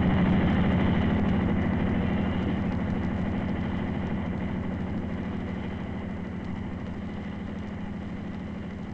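Westland Whirlwind helicopter in flight, its engine and rotor going with a fast steady beat, slowly fading as it flies away.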